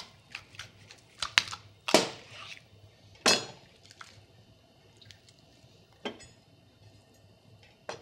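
Knife cutting along the backbone of a raw bird carcass: scattered sharp clicks and knocks of the blade against bone, loudest about two and three seconds in.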